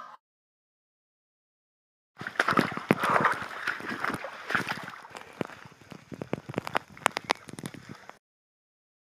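After about two seconds of silence, water sloshing and splashing on a muddy, rocky trail with running water, with many sharp irregular clicks; it fades somewhat and then cuts off suddenly about a second before the end.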